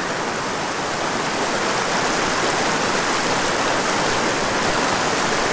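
Small rocky mountain creek rushing over stones in a shallow riffle, a steady, close wash of moving water.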